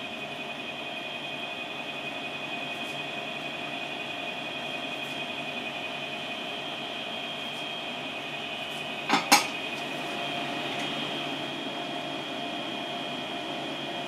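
Steady machine hum with a constant high whine, and two sharp clicks in quick succession about nine seconds in.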